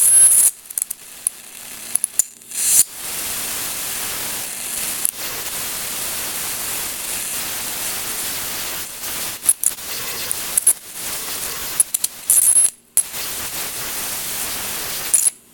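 A high-voltage electric arc across pancake syrup in a metal bottle cap: a steady hissing crackle, broken by several sharp, louder snaps. The sound cuts out briefly a few times and stops near the end.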